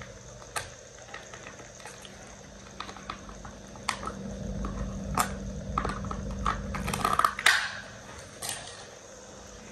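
Small scissors trimming a strip of false eyelashes: a few scattered, sharp snips and light handling clicks spaced a second or more apart.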